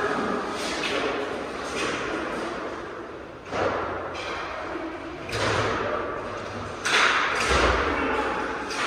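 Inline hockey play echoing in a large hall: several sharp knocks and thuds of sticks and puck against the boards and floor, the loudest about three and a half, five and seven seconds in.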